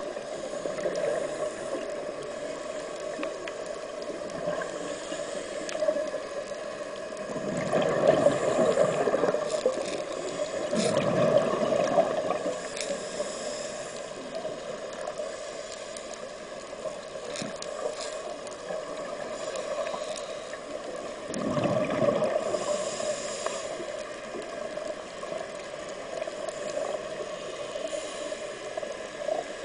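Underwater sound of a scuba diver's exhaled bubbles gurgling past the camera in three long rushes, over steady background water noise with scattered sharp clicks.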